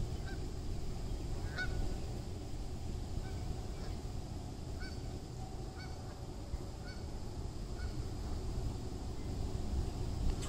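Geese honking: a string of short calls, repeated roughly every second, over a steady low rumble in the background.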